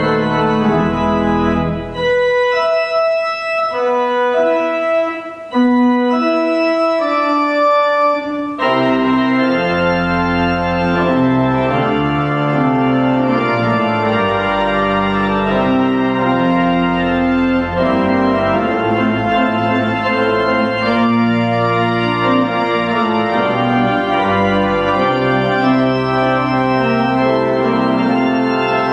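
Church pipe organ playing sustained chords. About two seconds in, the deep bass drops out and a lighter, higher line plays on its own; the full sound with bass returns about eight and a half seconds in.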